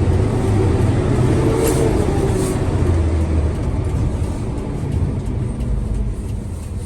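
Tow truck's engine running as the truck pulls away into traffic. The deep rumble is heaviest for the first three seconds or so, then eases off.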